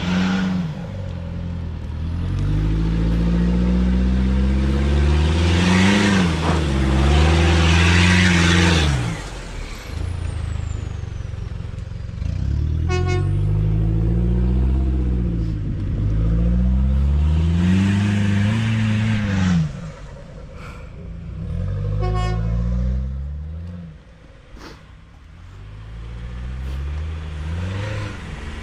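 Off-road pickup truck engines revving up and down over and over as they work along a rough dirt track, with tyre and gravel noise on the harder pulls. A short horn toot sounds twice in the middle.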